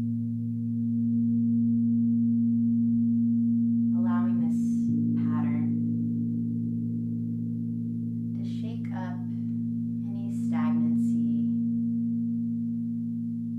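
Crystal singing bowls ringing in a steady, sustained chord that swells about a second in. A breathy human voice sounds briefly twice over the drone.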